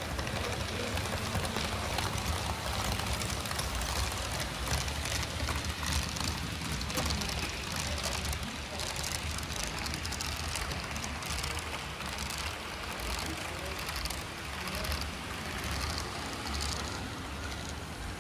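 Model train running on the layout track: a steady rumble with quick clicking over the rails, over the hum of the room.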